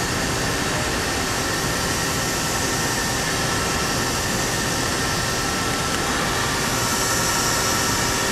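Mori Seiki NH4000 DCG horizontal machining center running: a steady machine hum and hiss with a few faint steady tones.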